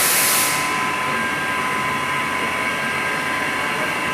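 CNC milling machine running, a steady whine of several high tones over a noisy hiss. A louder hiss stops about half a second in.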